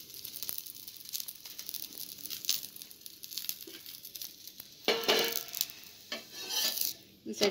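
Oil sizzling softly under a coconut-stuffed flatbread frying on a dosa griddle over a low flame, with a steady fine crackle. A couple of louder sounds come in about five and six and a half seconds in.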